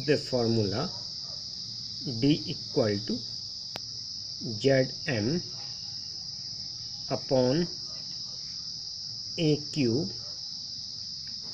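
A steady high-pitched chorus of crickets, with a man's voice speaking short phrases every couple of seconds over it.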